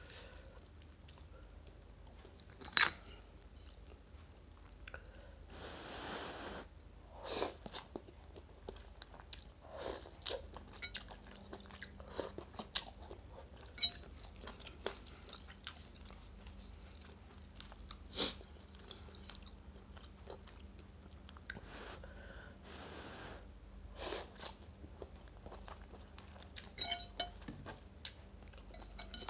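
Close-up eating of rice vermicelli (bihun) soup: chewing, with a couple of longer noisy slurps and scattered sharp clicks, a few of them loud.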